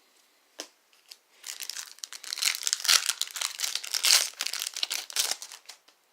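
Plastic wrapper of a Panini Contenders basketball card pack crinkling and tearing as it is opened, a dense crackle that starts about a second and a half in and stops shortly before the end, after a couple of soft clicks.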